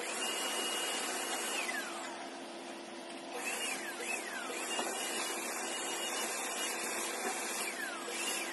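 Husky puppy whining: several high-pitched whines, some held for a second or more and then falling in pitch, others short and dropping. Under them runs a steady machine whir with a low hum.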